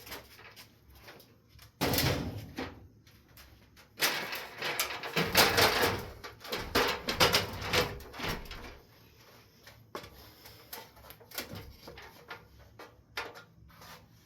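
A ladder being moved: a thump about two seconds in, then a longer run of clattering and scraping, the loudest part, followed by a few lighter knocks.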